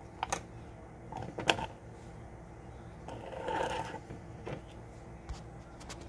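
White plastic screw-on lid being set on and screwed onto a glass mason jar: several clicks and taps, with the loudest knock about one and a half seconds in, and a scraping turn of the lid on the threads about three seconds in.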